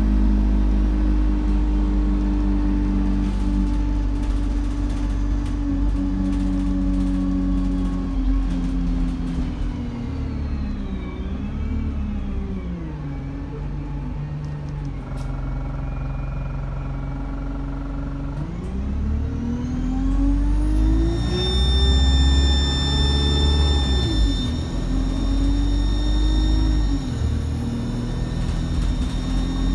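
Bus diesel engine running with its turbocharger whistling. The revs fall away and then climb again as the bus pulls off. About twenty seconds in, a shrill turbo whistle rises steeply and holds high, easing a little a few seconds later.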